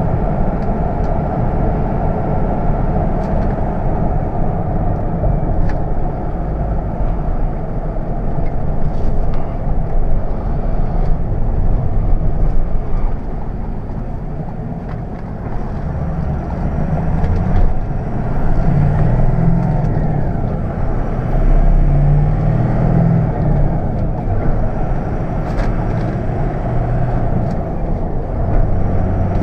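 Interior cab sound of a Ford F-350's 6.0-litre Power Stroke V8 turbo diesel pickup driving along, with a steady engine drone mixed with road and tyre noise.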